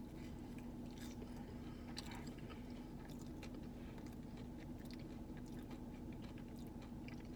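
Close-up chewing and biting of a crispy fried chicken sandwich, with scattered small crunches, over a steady low hum.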